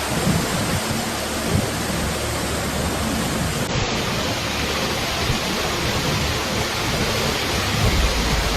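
Torrential rain pouring down: a steady, dense hiss with a slight change in tone a little under four seconds in.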